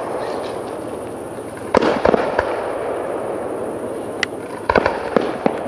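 Aerial fireworks display: a few sharp bangs of shells bursting about two seconds in, then a quick cluster of reports near the end, over a steady background hiss with scattered small crackles.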